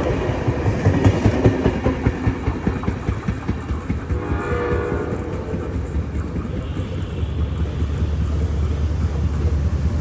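Passenger coaches rattling past at speed over the rail joints in a rhythmic clatter. About four seconds in, a train horn sounds for about a second, and then the low rumble of an approaching diesel locomotive's engine grows steadily louder.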